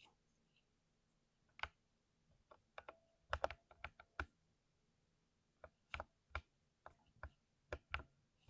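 Keys of a lubed mechanical keyboard being pressed, in scattered single keystrokes with quick runs of presses about three seconds in and again in the last few seconds.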